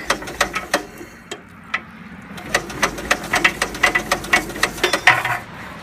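Old bulldozer engine being cranked with the choke pulled, giving a run of irregular sharp pops and clatter that grows dense about halfway through and stops near the end without settling into a steady run. The owners suspect fuel starvation from vapor in the fuel line.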